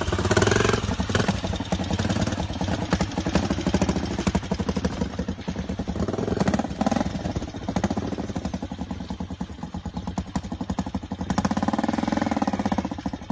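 VR150 motorcycle engine running under way, a rapid steady pulsing whose revs rise and fall a few times.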